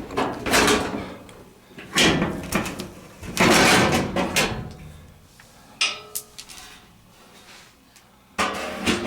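Sheet-metal dryer cabinet being handled, with several scraping and sliding bursts in the first half, then quieter.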